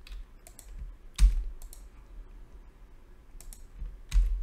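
Scattered computer keyboard keystrokes as a number is typed into a software field. The two loudest clicks, about a second in and near the end, carry a low thud.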